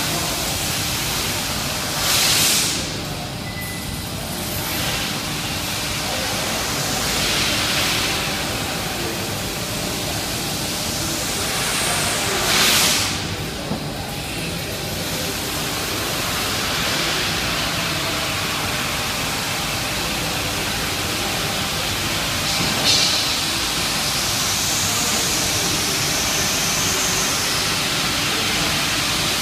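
Laser cutting machine cutting 10 mm stainless steel plate: a steady rushing hiss of gas at the cutting head. Brief louder rushes come about two seconds in, near the middle and again later, over a faint steady machine hum.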